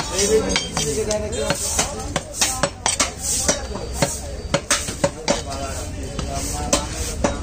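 Butcher's knife cutting beef on a wooden tree-stump chopping block: a quick, irregular run of sharp knocks as the blade strikes the wood, with voices talking behind.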